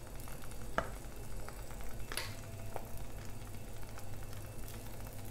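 Toppings and chorizo slices being laid by hand on a crepe in a nonstick frying pan: a few soft taps and clicks over a low, steady hum.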